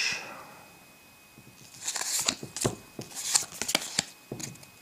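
A stack of trading cards handled in the hands, the front card slid off and tucked to the back of the pack: a run of quick papery flicks and scrapes from about a second and a half in until near the end.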